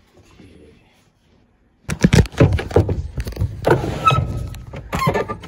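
About two seconds in, a loud, dense run of knocks, thuds and clatter begins: wooden furniture piled in a pickup truck's bed shifting and knocking as someone climbs up onto the load. A short squeak comes a little past the middle.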